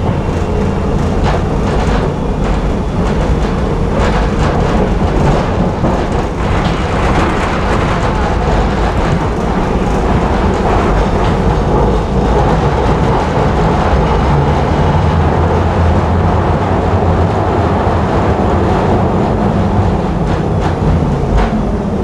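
Tram running along its track, with steady wheel-on-rail rumble and scattered sharp clicks from rail joints and points. A low motor hum swells for a few seconds past the middle.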